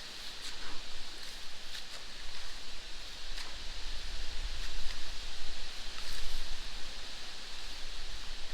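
Water running steadily through a drainage canal, with rustling and scattered small clicks, and low rumbles that swell about halfway through.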